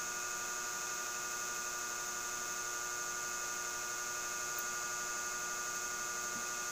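Steady electrical hum and whine, made of many steady tones held at one level throughout, with no eating or other sounds standing out above it.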